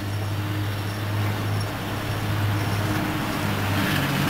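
Outdoor background noise with a steady low hum.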